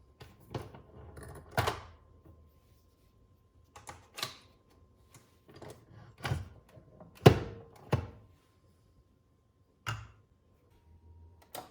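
A series of separate knocks and clicks, about nine, with the loudest about seven seconds in: hard objects being handled and set down.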